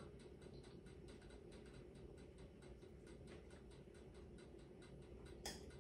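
Near silence: faint room tone with a low hum and faint, evenly repeated ticks.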